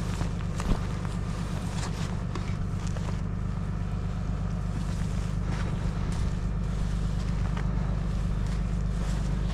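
Honda snowblower engine running steadily, with a few scattered light knocks over it.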